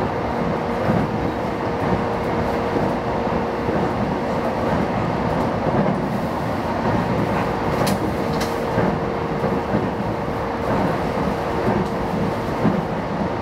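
JR East E233-5000 series electric commuter train running between stations: continuous rumble of the wheels on the rail with a steady hum, and two sharp clicks about eight seconds in.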